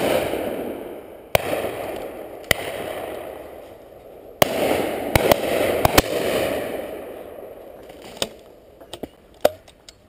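Shotgun shots, about ten in all at uneven spacing: a few loud ones close by, others fainter and farther off. Each loud shot trails off in a long echo.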